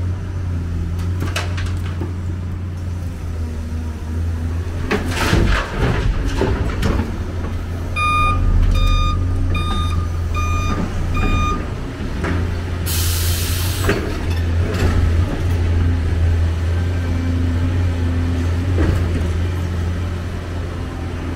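Heavy diesel engine of a Hyundai 290LC-9 crawler excavator running steadily as it loads demolition rubble into a dump truck, with a clatter of rubble dropping into the steel truck bed about five seconds in. A reversing alarm beeps five times around eight to eleven seconds, and a short hiss of released air follows about thirteen seconds in.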